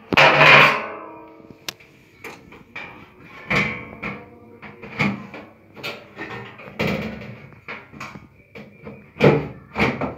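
Background music with held tones, and many irregular sharp knocks and clanks throughout, loudest about half a second in and again near the end.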